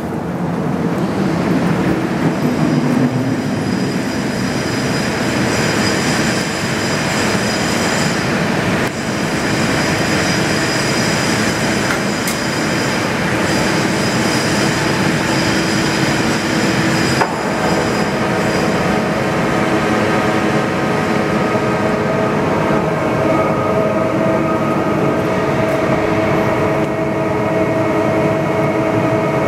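The 1965 WMW-NILES DKZ 4000 double-column vertical turret lathe is running empty, its table and gear drives making a loud, steady mechanical noise with whining tones. About two-thirds of the way in the sound shifts and a steadier whine takes over.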